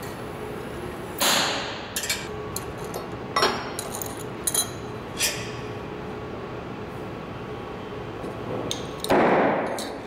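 Oxy-acetylene gas torch hissing steadily while metal pieces clink sharply several times. Two louder bursts, about a second in and near the end, die away over most of a second.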